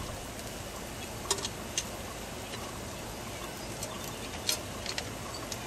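Tongs laying quail on a charcoal grill grate: a few light metal clicks scattered over a steady low hiss.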